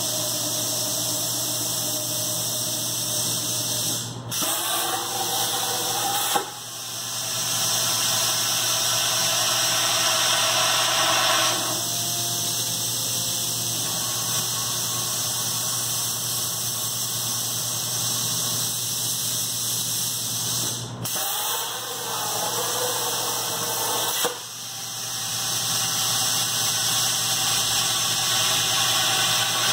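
CNC plasma cutter's arc hissing steadily as the torch cuts holes through the top wall of 4x2 steel tubing. Twice the hiss breaks off with a sharp click for two or three seconds, with a shifting whine while the torch moves to the next hole, and then it starts again.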